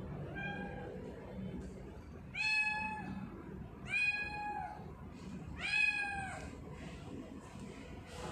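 Young tortoiseshell cat meowing: one faint short meow, then three loud, high-pitched meows about a second and a half apart, each rising and then falling in pitch.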